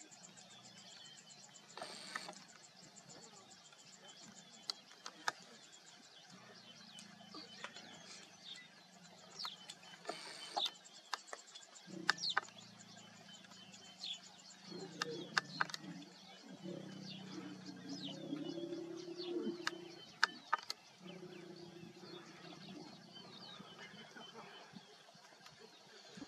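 Wild birds calling: many short, quick, falling chirps, scattered through the whole stretch, with a few sharp clicks. Underneath, a low droning rumble comes and goes, longest and loudest in the middle.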